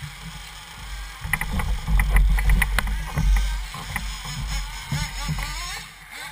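1/8-scale RC buggies racing, their motors whining and rising and falling in pitch. Over them, from about a second in, comes a heavy low rumble with several sharp knocks, which dies away near the end.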